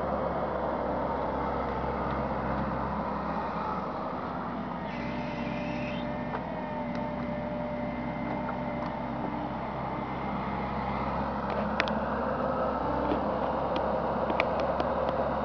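Bobcat E55 mini excavator's diesel engine running steadily while it works a tree shear, with a thin steady whine in the middle and several sharp clicks near the end.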